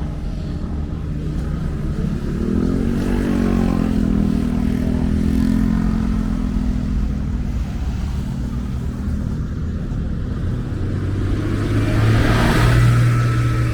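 Motor vehicles passing close by on a street. One engine rises in pitch a few seconds in and then holds steady, and near the end a second engine hum and a louder rush of passing traffic build up.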